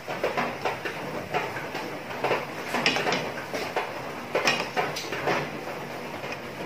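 Dark oyster-sauce braising liquid boiling hard in a frying pan around a whole chicken: a steady bubbling hiss with irregular crackling pops, while a spoon stirs it and ladles it over the chicken. The sauce is being boiled down and is thickening.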